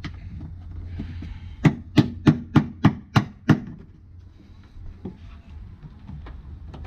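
Seven sharp plastic knocks in quick succession, about three a second, starting about a second and a half in: the plastic windshield cowl panel being pressed and tapped down by hand to snap its clips into place.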